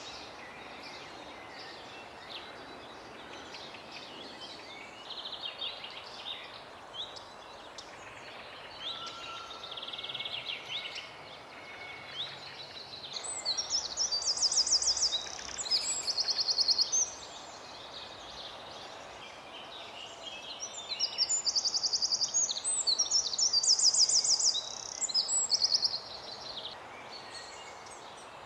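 Eurasian wren singing: two loud song bouts of rapid, high trills, of about four and five seconds, in the second half. Fainter songs of other birds come before them.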